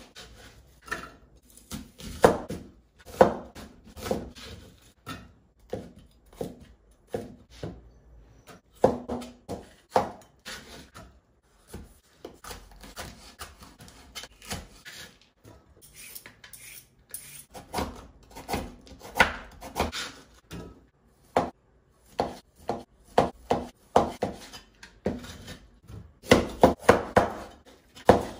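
Kitchen work while cooking: dishes, cutlery and a wooden chopping board knocking and clinking in irregular clusters of sharp hits.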